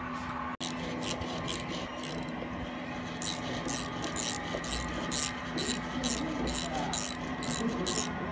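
Hand file rasping on the metal of a broken liftgate glass hinge, in quick back-and-forth strokes about three a second with a short pause partway through, as the hole through the hinge is worked for a bolt.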